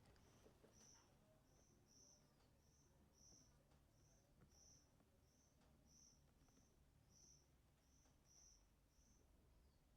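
Near silence, with faint high chirps repeating evenly about one and a half times a second, the steady chirping of a cricket.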